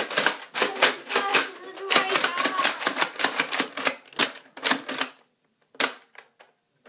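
Rapid plastic clicking and clattering of Nerf blasters and their parts being handled, dense for about five seconds, then a single sharp click near the end.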